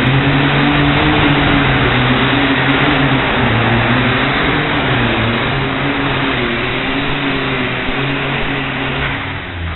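Loud engine of a pulling tractor running steadily at high revs, dropping off near the end.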